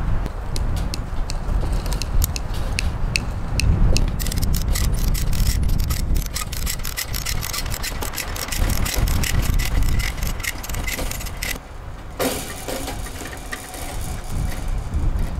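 Ratchet of a come-along clicking in quick runs as it is cranked to stretch a strand of high-tensile barbed wire against a corner post. The clicks speed up about four seconds in and stop after about eleven seconds. Wind buffets the microphone with a steady low rumble.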